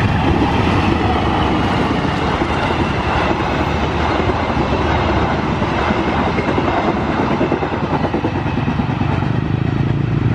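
Passenger train passing close by, its carriage wheels rumbling and clattering steadily over the rails.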